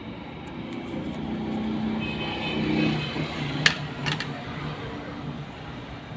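A motor vehicle's engine hum that grows louder for about three seconds and then fades away. Two sharp clicks come a little after the middle.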